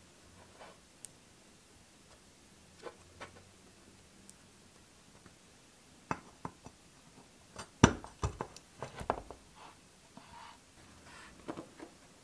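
Light clicks and knocks of a steel cleaver tang being fitted down over brass pins onto a resin handle scale on a worktop, a cluster of them from about six seconds in, the loudest near eight seconds. Soft handling sounds before and after.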